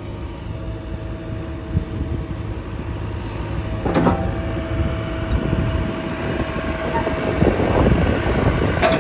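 JCB 3CX backhoe's diesel engine running steadily, with a thin steady whine over it that stops about seven seconds in. A sharp metallic knock comes about four seconds in and another near the end.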